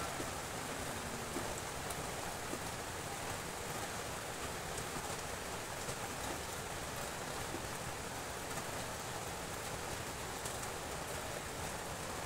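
Steady rain falling, an even hiss with scattered faint drop ticks.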